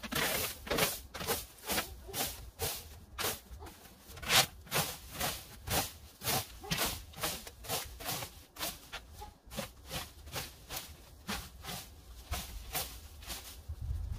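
Leaf rake scraping through cut grass clippings and dry thatch, about two quick scratchy strokes a second.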